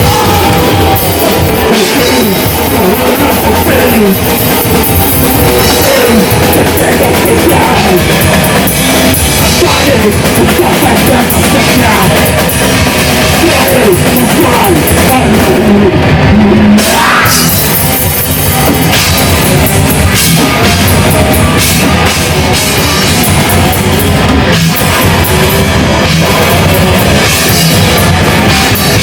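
Death metal band playing live: heavily distorted guitars and bass over fast, dense drum-kit playing, loud and steady.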